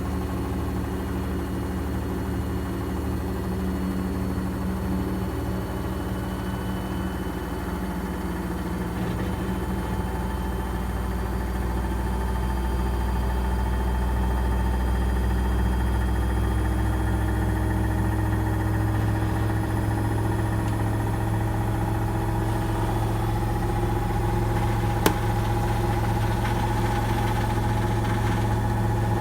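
Gorenje washing machine drum spinning fast in its final spin, a steady motor hum and whine that grows a little louder partway through. One sharp click near the end.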